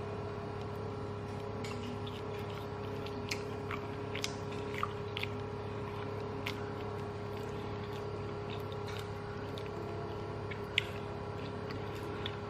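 Eating by hand and chewing rice with tempeh orek: scattered soft mouth and chewing clicks at irregular moments, one sharper click near the end, over a steady electrical hum.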